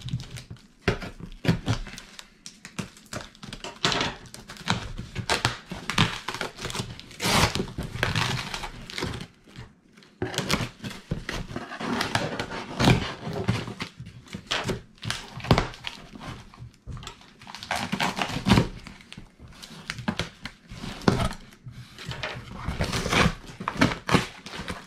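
Cardboard shipping box being opened: packing tape cut and torn and the box flaps pulled and scraped, giving an irregular string of scraping, rustling and tearing noises with occasional knocks.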